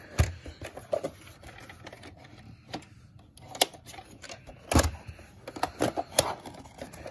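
Plastic clicks and knocks of a VHS cassette being handled and slid back into its plastic clamshell case, with one louder knock a little under five seconds in.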